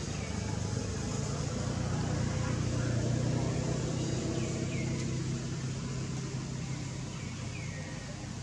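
A motor vehicle's engine running close by, a steady low hum that grows louder for about three seconds and then slowly fades, as a passing vehicle does. A few faint, short, falling high chirps sound over it.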